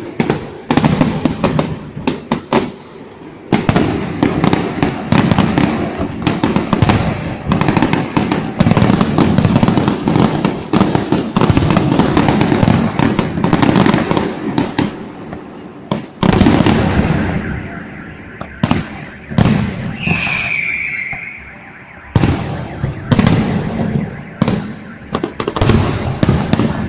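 Fireworks display: a dense barrage of shell bursts and crackling, thinning after about sixteen seconds into separate loud bangs, with a short falling whistle about twenty seconds in.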